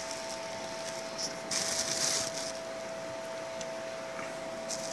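A steady electrical hum made of a few even tones, broken by two short rustling noises, one about a second and a half in and one near the end.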